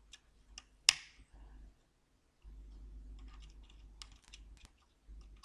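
Multimeter probe tips clicking and tapping against components on a computer motherboard as they are moved between test points: a few sharp clicks, one louder than the rest about a second in, then a quick cluster of small clicks near the end.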